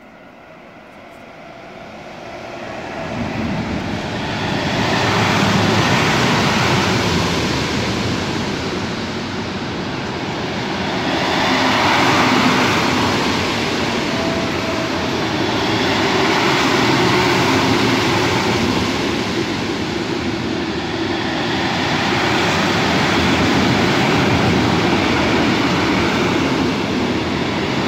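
Electric freight train passing: a Class 185 electric locomotive and its long train of intermodal wagons carrying swap bodies, with steady wheel-on-rail noise. The sound builds over the first few seconds as the train draws near, then stays loud with slow rises and falls as the wagons run by.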